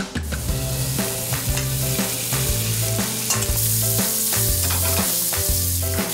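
Marinated beef rib-finger meat sizzling and frying in a hot pan on a gas burner while tongs stir and toss it. The hiss of the sizzle grows louder about halfway in.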